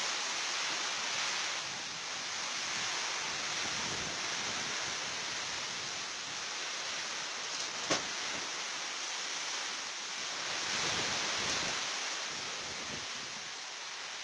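Storm wind and rain rushing through trees, a steady dense roar that swells and eases. One sharp crack about halfway through.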